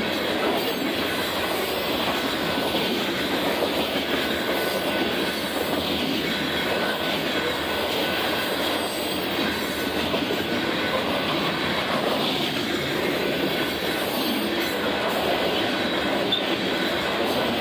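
Covered hopper cars of a grain train rolling past at steady speed: a continuous rumble and clatter of steel wheels on rail.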